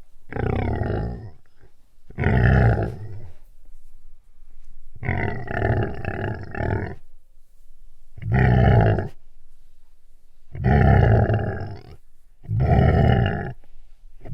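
A large animal growling: six separate growls, each about one to two seconds long, with short pauses between them.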